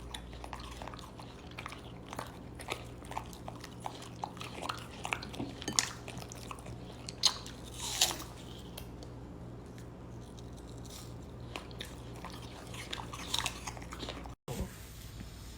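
A pet chewing, with many small irregular crunches and a few louder bites, over a steady low electrical hum. The sound breaks off near the end.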